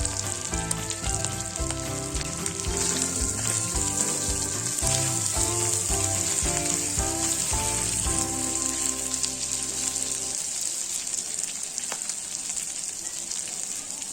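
Prawns sizzling in hot mustard oil on an iron tawa, a steady hissing fry. Background music with a beat plays over it and stops about two-thirds of the way through.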